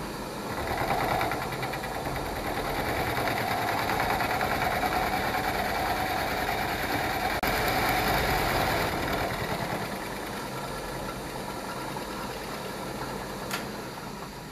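Milling machine end mill taking a side cut along a metal block: a steady cutting and grinding noise over the running spindle. It is loudest for the first nine seconds or so, then quieter as the cut eases off. A single sharp click comes near the end.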